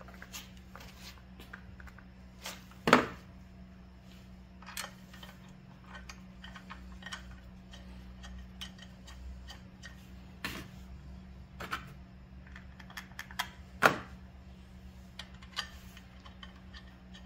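Small metallic clicks and taps of bolts being handled and threaded by hand into a clutch pressure plate, scattered irregularly, with two sharper knocks about three seconds in and near the end. A low steady hum runs underneath.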